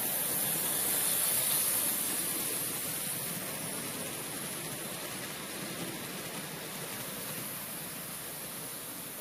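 HO-scale model train of old-style passenger coaches rolling past on layout track: a steady running rumble of wheels on rail, loudest about a second or two in, then slowly fading as the train moves away.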